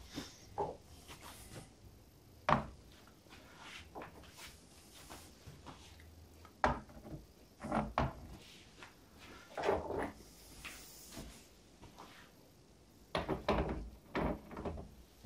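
Weights being set down one after another on the load plate of an MDF model railway bridge under a load test: a series of separate knocks and clunks, several in quick succession near the end.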